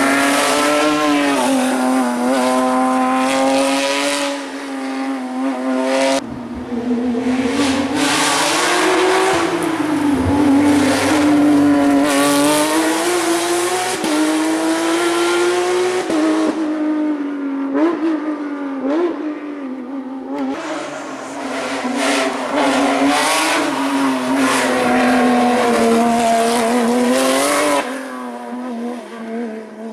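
Porsche 911 GT3 Cup's flat-six engine driven hard, its pitch rising and falling again and again as it accelerates, lifts off and changes gear, with brief drops in level a few seconds in, just past the middle and near the end.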